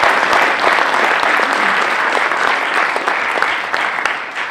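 Audience applauding, a dense mass of hand claps, easing off slightly near the end.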